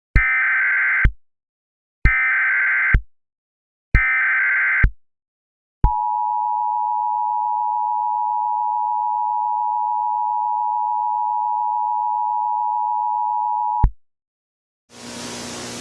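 Emergency Alert System SAME header: three short bursts of screechy digital data tones about two seconds apart, then a steady EAS attention tone held for about eight seconds that cuts off abruptly. A hiss of static comes in near the end.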